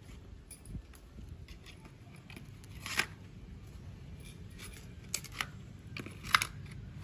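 Scattered small clicks and taps of a precision screwdriver and a tiny screw being worked out of the camera bracket of an opened Redmi Note 9 Pro phone, the two sharpest about three seconds in and near the end.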